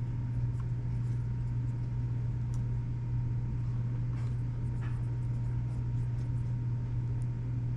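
A steady low hum with a faint higher steady tone above it, overlaid with scattered faint clicks and light scraping from small parts being handled while a cassette deck is taken apart.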